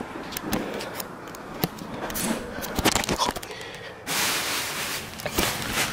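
Handling noise from a phone being moved around while it records: scattered clicks and bumps, then a loud burst of rustling against the microphone about four seconds in.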